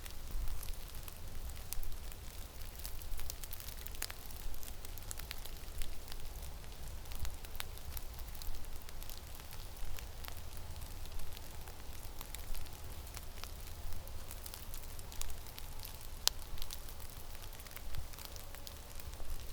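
Wind in a snowstorm buffeting the microphone with a low, fluttering rumble, with many scattered sharp ticks and crackles.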